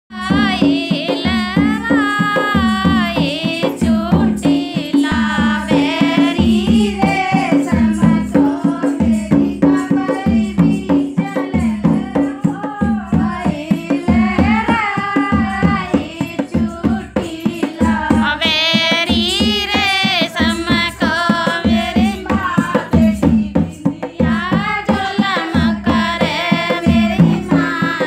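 Indian folk-style song: a singer's voice in bending, ornamented phrases over a steady, fast drum beat.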